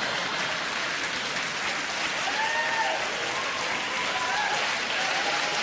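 Audience applauding steadily, with a few voices heard through the clapping.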